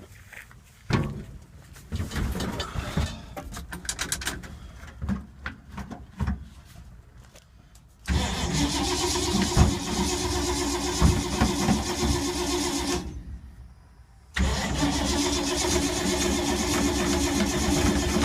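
A 1952 Ford's starter cranking the engine without it catching, which the owner takes to be flooded. There is one long crank of about five seconds, a pause, then cranking again. Several seconds of irregular knocks and clatter come before the first crank.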